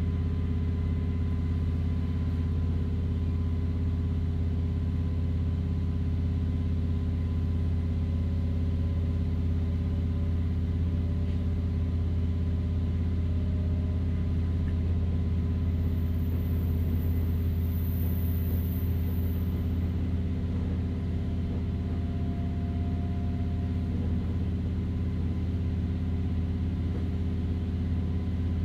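KiHa 40 diesel railcar running between stations, heard from inside the car: a steady low diesel engine drone with rail and running noise, recorded binaurally.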